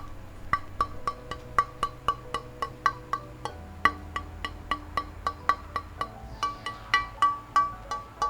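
Background music with a steady beat of wood-block-like clicks, about four a second, over held chords that change twice.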